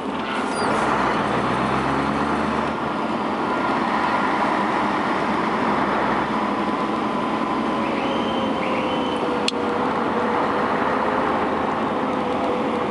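Truck engine running with road noise, heard from inside the cab while driving along steadily.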